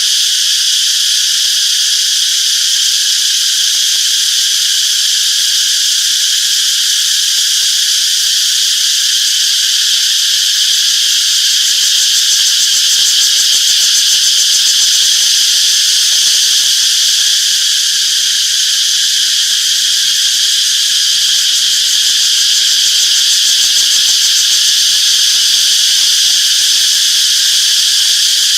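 A chorus of cicadas chirping: a loud, steady, high-pitched drone that never breaks.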